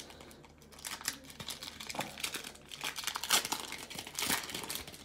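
Foil wrapper of a baseball card pack being torn open and crumpled by hand: a run of crinkles and crackles that grows denser and louder toward the end.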